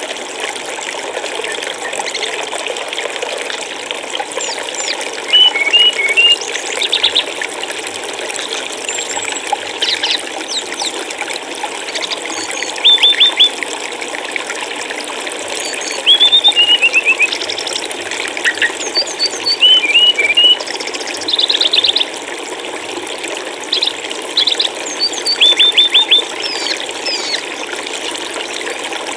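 Steady flowing water, like a stream or trickle, with small songbirds chirping over it in quick groups of three to five high notes, repeated every few seconds.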